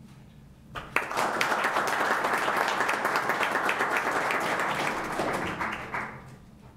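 A small audience in a meeting room applauding. The clapping starts about a second in, runs steadily for about five seconds and dies away near the end.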